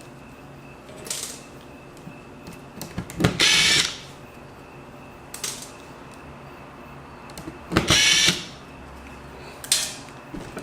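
Electric screwdriver whirring in two short bursts as it backs screws out of a laptop's palm rest, with a few light clicks between them.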